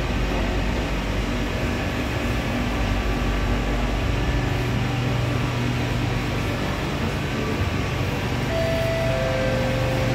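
Steady hum inside a stationary Kawasaki-Nippon Sharyo C751B MRT train car, from its air conditioning and onboard equipment while the doors stand open. Near the end a short two-note falling tone sounds.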